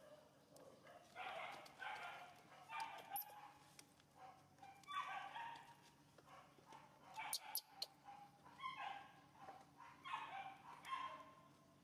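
Baby macaque whimpering: a series of short, high, squeaky cries coming every second or two, with a few sharp clicks mixed in.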